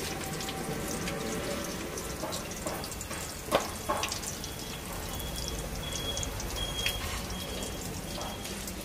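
Potato egg chops deep-frying in a steel karahi of hot oil, a steady bubbling sizzle full of fine crackles. Two sharp metallic clicks come about three and a half seconds in, as the skimmer knocks the pan.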